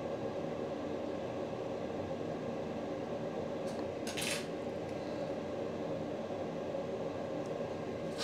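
Steady hum of bench equipment at a microsoldering station, with two light metallic clinks: one about four seconds in and one at the end, as small metal tools touch down.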